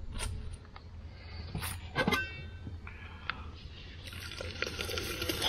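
An aluminium stockpot lid clanks and rings briefly about two seconds in as it is lifted off the pot. Then water bubbles and hisses at the boil while seasoning is poured in from a packet.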